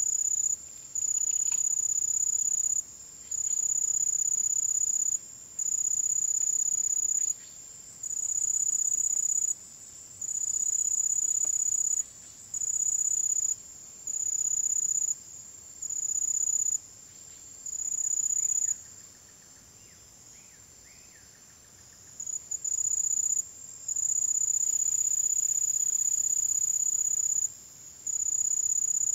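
An insect, cricket-like, calling in repeated high-pitched trills on one steady note, each a second or two long with short gaps between them. The calling stops for about three seconds a little past halfway, then resumes.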